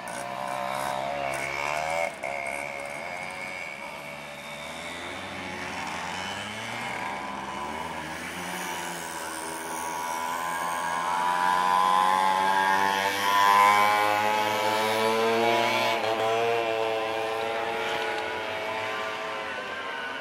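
Several motorcycle engines revving as the bikes ride past one after another, their pitch rising and falling as they accelerate. They are loudest a little past the middle.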